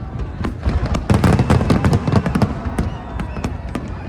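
Fireworks going off in quick succession, a dense run of bangs and crackles, loudest and thickest between about one and two and a half seconds in.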